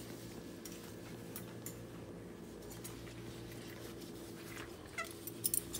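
Dishes being washed by hand: faint clicks and clinks of dishes being handled over a steady low hum, with a few sharper clinks about five seconds in.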